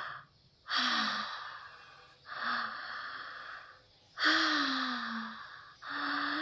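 A woman breathing deliberately in and out through her open mouth, one audible breath after another, each about a second and a half long with a short pause between. A brief low voiced note sounds at the end of some breaths.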